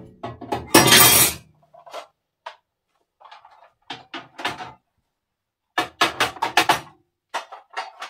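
Plant containers and a glass jar clinking and knocking as they are set down on a glass cabinet shelf, in several quick clusters of clicks, the loudest a clatter about a second in.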